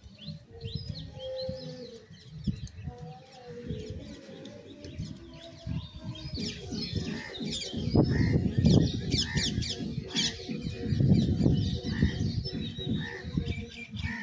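Small birds chirping repeatedly, with a low rumbling underneath that grows louder about eight seconds in.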